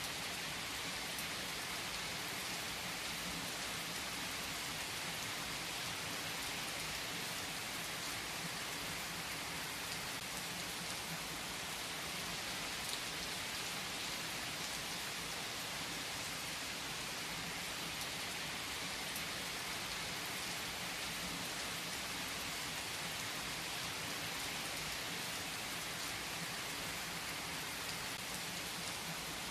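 Steady rainfall pattering on a surface: an even hiss of rain with scattered individual drops ticking through it.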